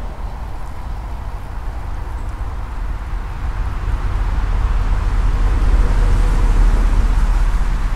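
Wind buffeting the microphone: a steady low rumble that grows stronger from about four seconds in.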